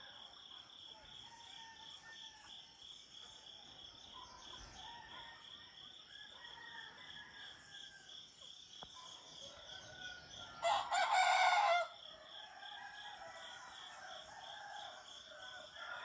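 A rooster crows once, loud and close, for about a second, roughly two-thirds of the way in. Behind it are a steady pulsing chorus of crickets and faint crowing from distant roosters.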